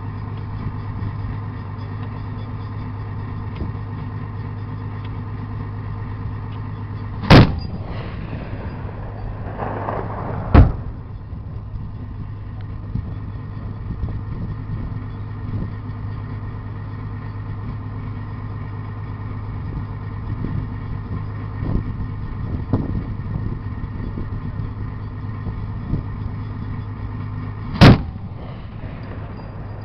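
25mm GIAT autocannon on an ACV's Sharpshooter turret firing single HE rounds: three loud sharp bangs, two about three seconds apart a third of the way in and one near the end. The armoured vehicle's engine idles steadily underneath.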